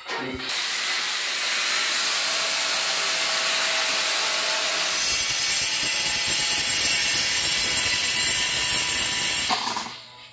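A power tool cutting ceramic floor tile: a steady, loud grinding noise that turns harsher about halfway through and stops near the end.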